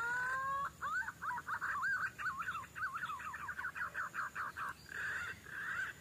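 Green pigeon (punai) song: two rising whistles, then about four seconds of fast warbling whistles swooping up and down, ending in two breathier phrases.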